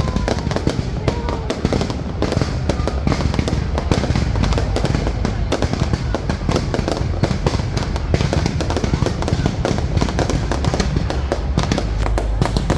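Fireworks going off in a continuous rapid barrage of bangs and crackles, with no pause.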